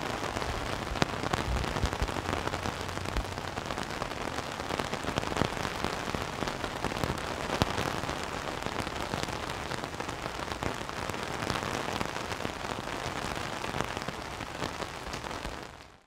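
Steady rain, with many close raindrops splatting on a wet surface. It fades out right at the end.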